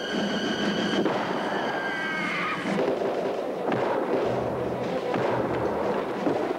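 Film battle sound: flintlock musket shots crackling over a noisy din. A high, drawn-out cry is heard in the first two and a half seconds.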